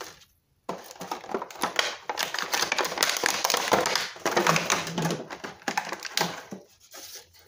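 Clear plastic blister packaging being handled and flexed, giving a dense run of rapid crackling clicks. The crackling starts about a second in and dies away near the end.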